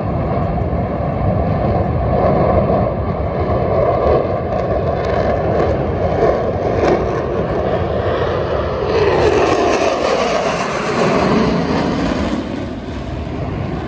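Jet engine noise from a formation of four military jets flying overhead, a continuous loud rumble that grows brighter and hissier about two-thirds of the way through, then eases slightly near the end.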